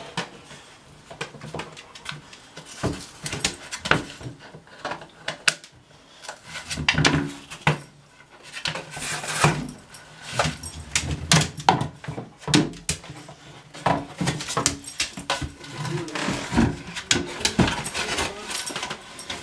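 A long cardboard tube repeatedly knocking and scraping against wooden door frames and a hardwood floor, carried in a dog's mouth as the dog tries to fit it through a narrow doorway. The knocks come irregularly and grow busier about halfway through.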